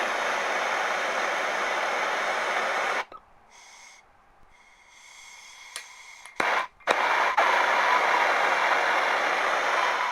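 BernzOmatic TS7000 torch flame burning with a steady hiss, shut off suddenly about three seconds in. After a faint hiss of gas and a few sharp clicks of the push-button igniter, the flame relights with a pop and burns steadily again.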